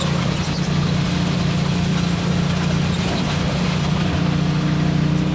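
Small tractor's engine running steadily and loudly under the ride.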